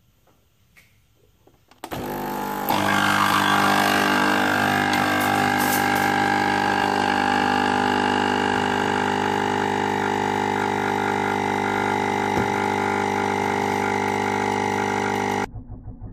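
A Nespresso capsule machine's pump hums steadily while brewing espresso over ice. The hum starts abruptly about two seconds in and cuts off sharply near the end, with a single click around twelve seconds in.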